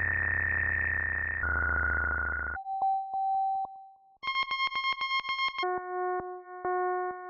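Electromagnetic-pickup recording of a massage gun's motor electronics: a run of steady, buzzy electronic tones that jump to a new pitch every second or so. There is a short gap about two and a half seconds in, and regular clicks run through the later tones.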